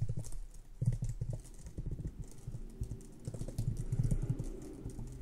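Typing on a computer keyboard: irregular key clicks, with quick runs of keystrokes about a second in and again about four seconds in.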